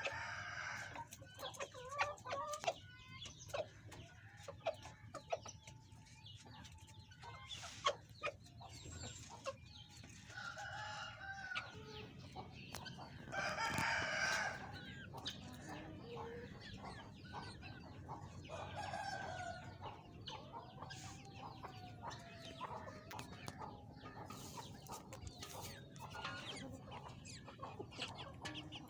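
Aseel chickens clucking and calling on and off, with a rooster crowing loudest about halfway through.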